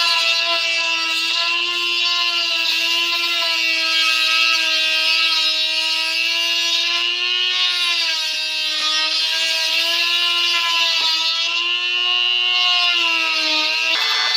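High-speed rotary tool running with a steady high whine, its pitch sagging briefly now and then under load as it cuts into plastic trim.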